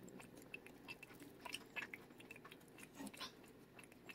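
A cat licking and chewing a lickable paste treat squeezed from a tube: faint, irregular small clicks of tongue and teeth.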